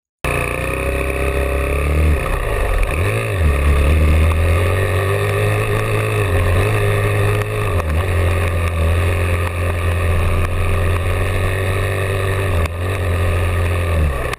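Dirt bike engine running and revving, its note rising and falling as the bike rides over rough ground, heard through an onboard camera's microphone with a heavy low rumble. It starts suddenly just after the start, and there is a sharp knock near the end.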